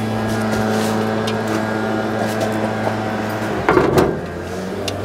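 Steady hum of the Masterbuilt Gravity Series 1050 smoker's fan running, with a brief metallic clatter about four seconds in as the cast-iron Dutch oven lid is lifted off the pot.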